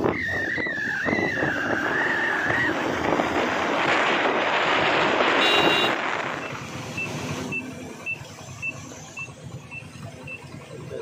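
A road vehicle passing close by, its noise swelling for a few seconds and then fading. Before it comes a wavering high squeal, and after it a short high beep repeats about twice a second.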